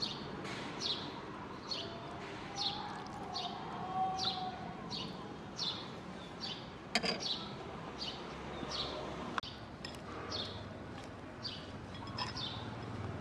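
A bird calling over and over, one short high chirp falling in pitch roughly every three-quarters of a second. A metal spoon clinks sharply once about seven seconds in.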